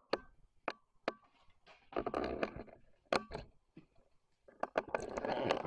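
Footsteps with scuffing and crunching: a few sharp knocks, then two stretches of crunching and scraping, about two seconds in and again near the end.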